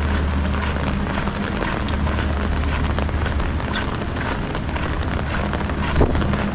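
Heavy rain falling steadily, a dense patter of drops, over a constant low hum; one short knock about six seconds in.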